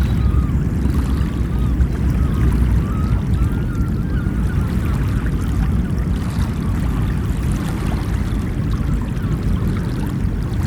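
Ocean waves washing onto a beach, a steady rushing surf with a deep rumble underneath. Short wavering bird calls sound faintly over it in the first half.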